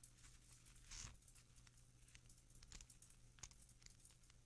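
Near silence broken by faint paper rustles and light clicks as the pages of a guidebook are turned, a slightly longer rustle about a second in.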